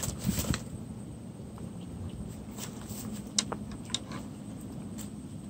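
Footsteps in flip-flops on dry grass at the start, then a few scattered sharp clicks and rustles of dry grass as a hooked rohu is handled on its line.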